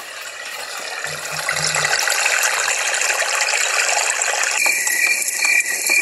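Mavogel white noise machine's small built-in speaker playing its ambient sound tracks: a loud, dense hiss with a fine crackle, which switches about four and a half seconds in to a track with a high tone pulsing several times a second.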